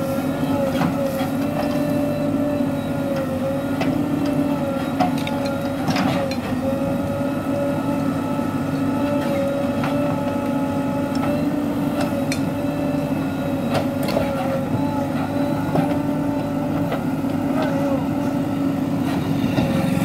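JCB 3DX Super backhoe loader's diesel engine running steadily at a constant pitch as the backhoe arm digs, with a few short sharp clicks.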